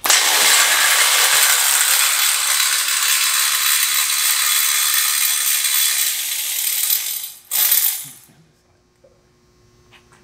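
Power ratchet spinning a fastener down on the front spindle for about seven seconds, then a short second burst.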